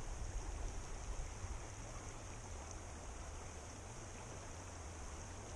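Shallow mountain river flowing steadily over a rocky bed, a constant rushing with a low rumble underneath.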